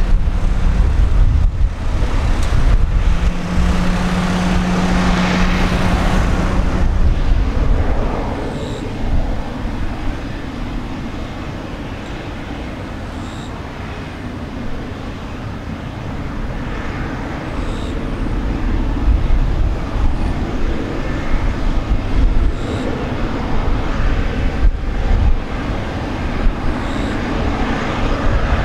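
Rolls-Royce Trent 1000 jet engines of a Boeing 787-8 airliner running at taxi power as it turns onto the runway: a steady rushing drone over a heavy low rumble that eases off in the middle and builds again. A steady low hum joins about four seconds in and lasts about three seconds.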